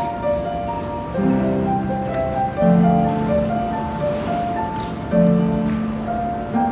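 An upright piano played by hand in a slow improvisation: a sustained melody over low chords, with a new bass chord struck about every two seconds or so.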